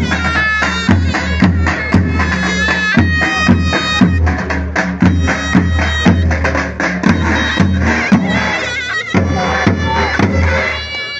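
Zurna, the shrill Turkish double-reed shawm, playing an ornamented, wavering melody over the steady beat of a davul bass drum: a davul-zurna dance tune (oyun havası).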